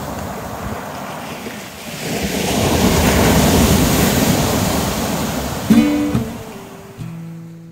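Surf breaking on a shingle beach, with one wave swelling and washing in about two seconds in, then fading. Near the end, acoustic guitar music comes in.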